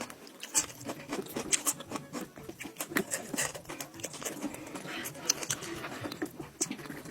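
Close-miked eating sounds: wet chewing and lip-smacking on grilled goat-head meat, with many small irregular clicks and smacks.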